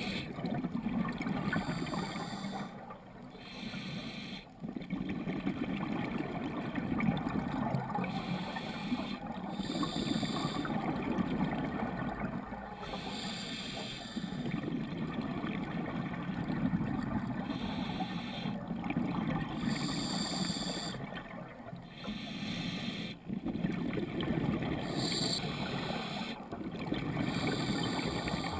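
Scuba regulator breathing, heard underwater through a GoPro housing. A short hissing inhale comes roughly every five seconds, each followed by a few seconds of bubbling exhale.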